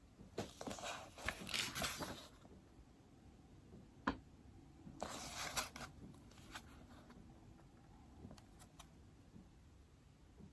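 Stylus writing on an iPad screen: two spells of scratchy strokes, with a single sharp tap on the screen about four seconds in and a few light ticks later.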